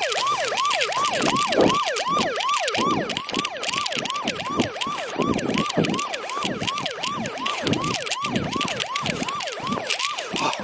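Siren in a fast yelp, its pitch swooping down and back up about three times a second without a break.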